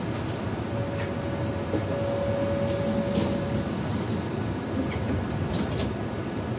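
Tram standing at a stop with its onboard equipment running as a steady hum. About a second in, a steady tone is held for about three seconds, and a few short clicks come near the start and near the end.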